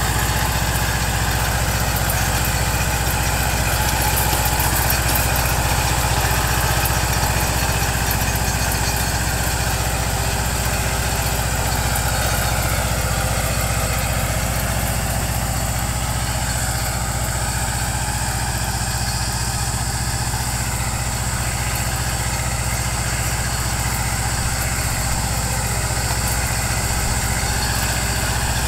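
Mahindra Jivo 245 4WD compact tractor's two-cylinder diesel engine running steadily while driving a Maschio rotavator that tills the soil.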